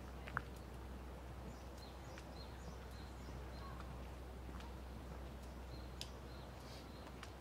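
Birds chirping, short high calls repeating every half second or so in loose runs, over a steady low rumble. A sharp click sounds about half a second in, and a fainter one about six seconds in.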